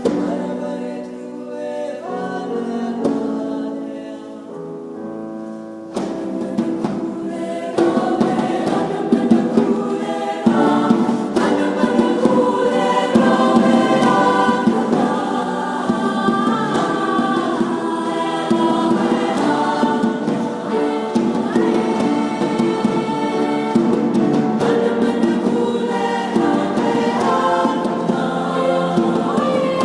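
A choir singing in concert. It opens with soft held chords; about six seconds in, more voices enter and the singing grows louder and busier, building further a couple of seconds later.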